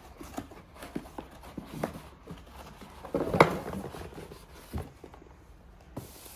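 Cardboard packaging being handled: scattered light knocks and scrapes as a bagged speaker held in cardboard end inserts is pulled out of its box, with one louder knock and scrape about three seconds in.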